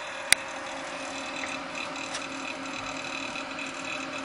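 Gaming PC giving off a steady, loud whirring made of several fixed tones over a hiss, an intermittent noise that the owner thinks might be a fan. A sharp click comes shortly after the start.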